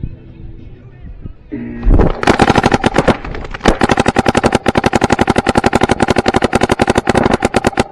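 Paintball markers firing rapid strings of shots, about ten a second, starting about two seconds in and running on without a break.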